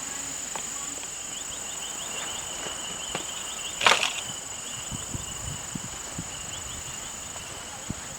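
Steady high-pitched insect chorus at a wetland, with runs of rapid chirping over it. About four seconds in there is a brief loud burst of noise, followed by a few soft knocks.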